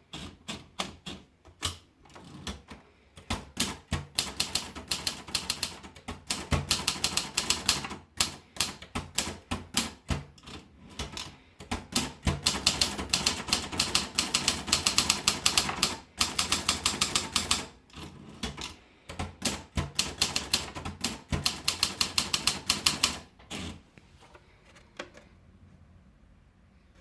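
Privileg 270T typewriter being typed on: rapid key strikes in bursts separated by short pauses, stopping a couple of seconds before the end.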